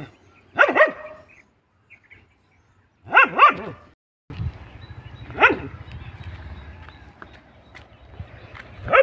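A tan village dog barking at a hooded snake in a standoff, sharp barks that drop in pitch. They come as quick pairs about half a second in and about three seconds in, then single barks in the middle and at the end. A steady low rumble comes in about four seconds in.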